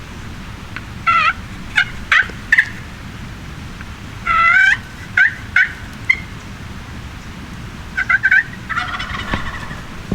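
Wild turkey gobbling: three loud, rattling gobbles about three to four seconds apart, with shorter single call notes in between.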